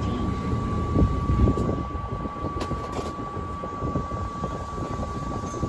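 Interior running noise of a Tokyo Metro 02 series subway car underway in the tunnel: a low rumble of wheels on rail with a thin steady high tone above it and a couple of knocks about a second in. The noise eases after about two seconds as the train nears its stop.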